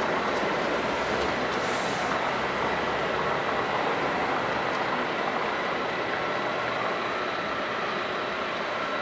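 Steady mechanical drone and hiss of fire engines' engines and pumps running, with faint constant whining tones. A brief high hiss sounds about two seconds in.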